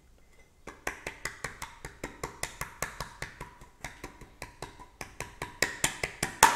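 A spoon clicking rapidly and evenly against a plate, about four or five clicks a second, as gazpacho is spread level across it. The clicks start about a second in and grow louder toward the end.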